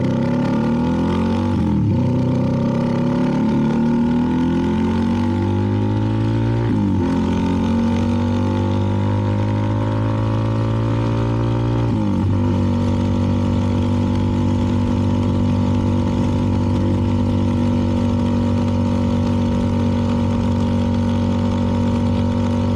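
CFMoto 300NK single-cylinder engine through a KO aftermarket exhaust, pulling up through the gears with the pitch rising and dropping at three upshifts, then holding a steady cruise.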